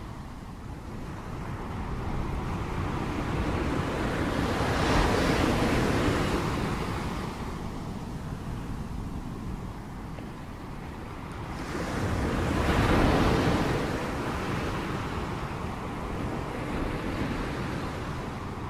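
Ocean surf: waves breaking and washing in, swelling loudest about five seconds in and again about thirteen seconds in.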